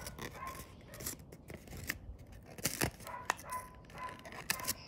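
Sheet of origami paper being folded and creased by hand, rustling with several sharp crackles.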